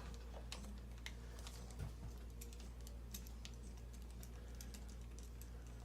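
Faint, scattered light clicks of small objects being handled, over a low steady hum.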